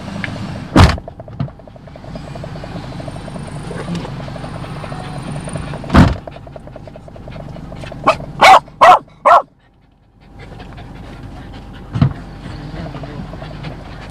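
Dog barking: four quick barks in a row about eight seconds in, with single sharp sounds about a second in, around six seconds and near the end, over a steady low hum.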